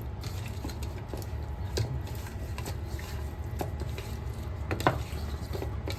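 Kitchen food-preparation handling: soft squishing with scattered light clicks and taps of utensils or dishes, over a steady low hum.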